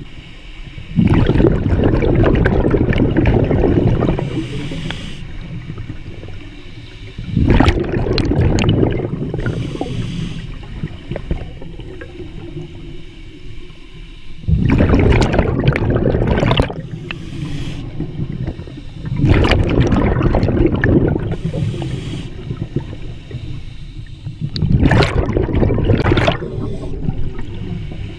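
Scuba diver breathing through a regulator underwater: five long rushes of exhaled bubbles, one every five to six seconds, with quieter stretches between them.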